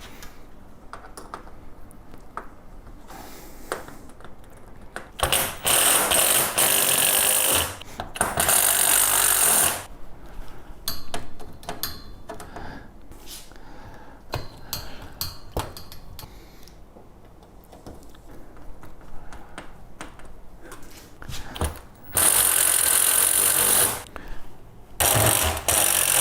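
Power drill running in four bursts of about two seconds each, driving screws while a compost tumbler is being assembled, with light knocks and clicks from parts being handled in between.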